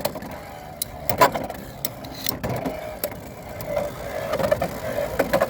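Beyblade X tops, Arrow Wizard and Tyranno, spinning in a plastic stadium after hard launches. They clack sharply against each other and the stadium walls, and a steady whirring hum builds up over the last second or two.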